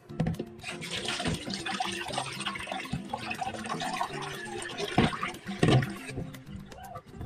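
Tap water running into a stainless steel kitchen sink and splashing as a whole tilapia is rinsed and rubbed by hand in a bowl, with a few knocks against the bowl or sink. The rush of water eases about six seconds in.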